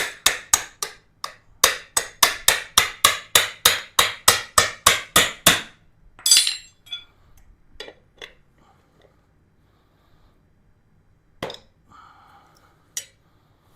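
Tire-changing tools working on a motorcycle wheel: a fast, even run of about twenty sharp metallic clicks or taps, about four a second, for some five seconds. One louder knock follows, then a few scattered faint knocks.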